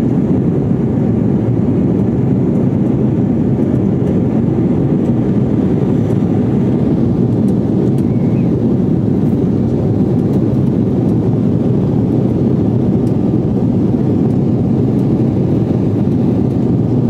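Cabin noise inside an Embraer 195 airliner in flight: a steady low roar from its GE CF34-10E turbofan engines and the air rushing past the fuselage.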